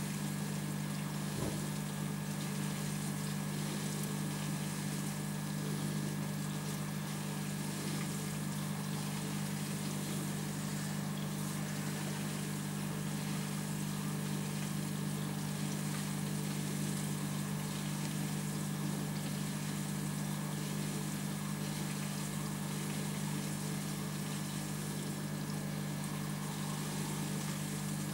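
Aquarium pump or filter running: a steady low hum with a faint wash of moving water.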